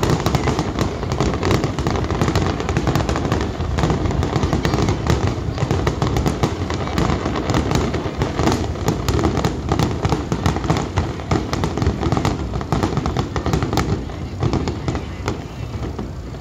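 Aerial fireworks in a dense barrage: rapid, overlapping bangs and sharp crackles over a rolling low rumble, easing off near the end.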